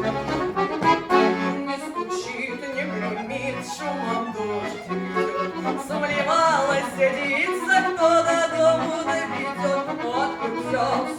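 Accordion playing the instrumental introduction to a Russian folk song: a melody over a regular bass-and-chord pulse.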